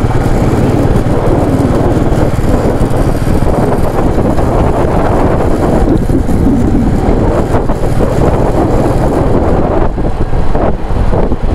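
Wind rushing across the microphone during a motorcycle ride, over the motorcycle's running engine and road noise: a loud, steady rush.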